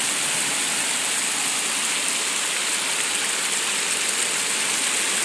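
Torrential rain falling and floodwater rushing down a street, an even, steady hiss.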